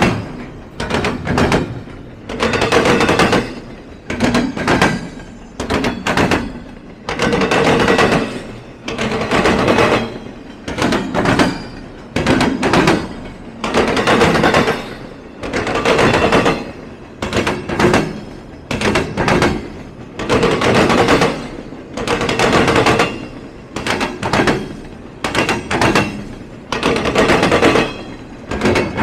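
Train wheels clattering over a railroad diamond crossing: loud, repeated clacks in quick clusters, one cluster after another as each set of wheels hits the crossing.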